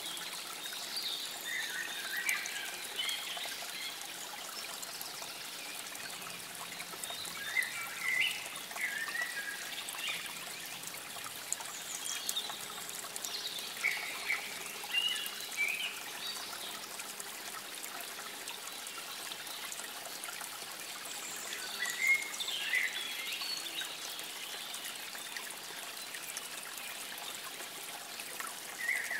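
Water trickling steadily, with birds singing in short phrases every few seconds.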